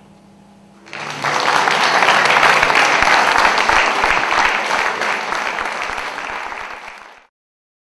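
Audience applauding, starting about a second in, then cut off abruptly near the end.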